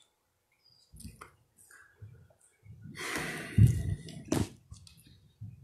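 Clothing rustle and light handling noise close to a clip-on microphone, with a few soft taps and a sharp click, as a man shifts his hands on a tablet at a lectern.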